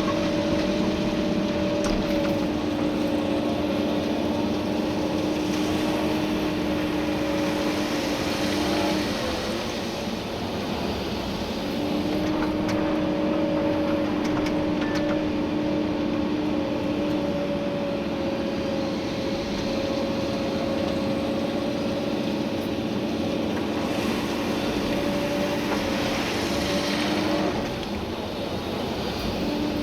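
Komatsu PC290-11 excavator's diesel engine and hydraulics running under working load, with a steady whine over the engine noise. The whine drops out twice, about nine seconds in for a few seconds and again near the end.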